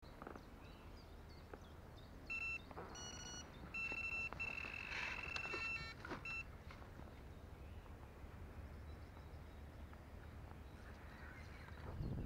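Electronic carp bite alarm beeping: several short bursts, then a long continuous tone, then one last short beep. This is the alarm signalling a run, a carp taking the bait and pulling line from the reel.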